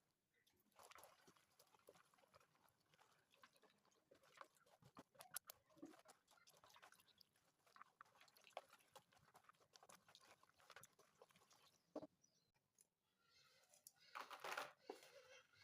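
Faint, irregular clicks and dry rustles, like small objects being handled.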